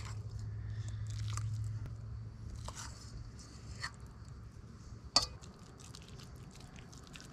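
A fork scraping and scooping wet fish-cake mixture in a stainless steel bowl, with soft squishing and scattered light clicks, and one sharper click about five seconds in.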